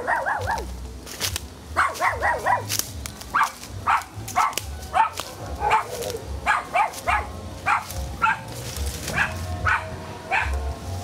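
A dog barking repeatedly in short, sharp barks, about two a second, with a brief pause near the start. A low rumble runs underneath.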